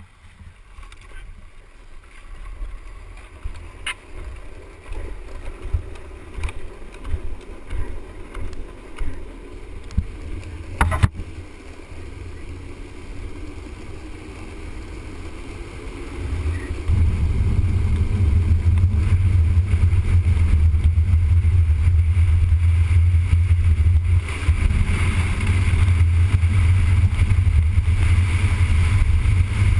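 Street luge rolling down an asphalt road, heard from a camera mounted on the rider: wind rushing over the microphone and the wheels rumbling on the road surface, with a few knocks early on. About halfway it becomes much louder and steadier as the luge picks up speed.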